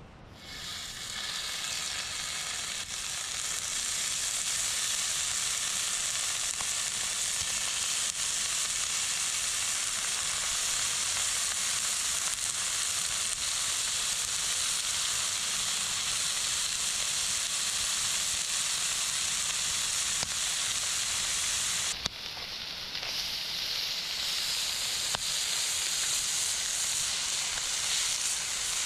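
Meat for yakiniku sizzling on a hot grill, a steady frying hiss that builds over the first few seconds, drops away abruptly about 22 seconds in and picks up again.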